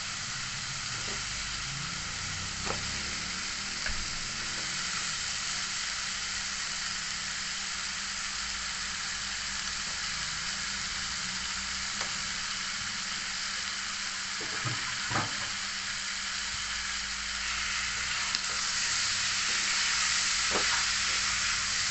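Chicken pieces sizzling in a wok of hot oil and fried spice paste: a steady frying hiss with a few light knocks, growing louder near the end.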